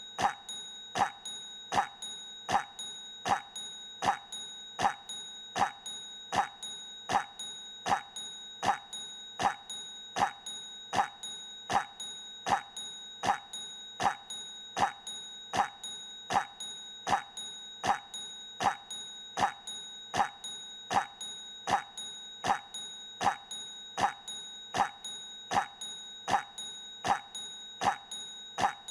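The Devil character's cough, looped so that it repeats over and over at a very even pace, a little faster than once a second. A steady high-pitched tone runs underneath.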